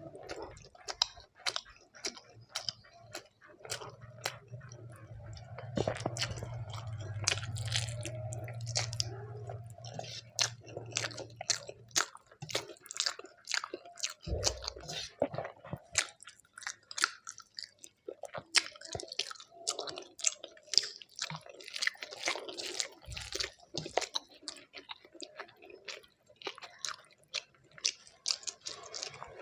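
Close-up chewing and mouth sounds of a person eating khichuri with fried vegetables and chicken: irregular wet smacks, clicks and occasional crunchy bites.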